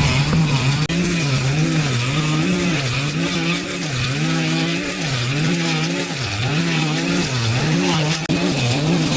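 Small petrol brush cutter engine running at high speed, its pitch dipping and recovering about once a second as the blade loads up cutting through overgrowth.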